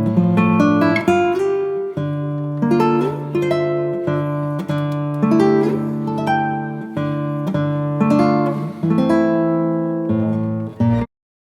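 Background music of acoustic guitar, notes plucked and left to ring in a gentle melody, cutting off suddenly near the end.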